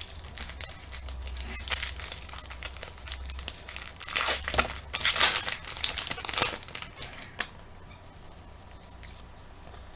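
A trading card pack's wrapper being torn open and crinkled by hand, with the crackling loudest about four to six seconds in and dying down for the last couple of seconds.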